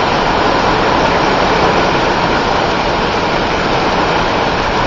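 Heavy summer downpour: a steady hiss of rain pouring onto a yard and splashing into standing puddles.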